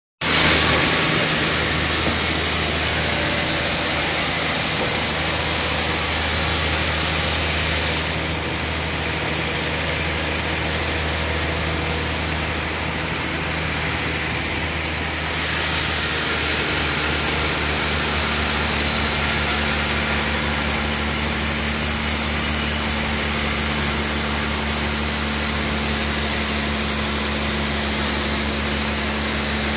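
Log band sawmill running steadily: a low machine hum under a broad hiss. The hiss turns duller for several seconds around the middle.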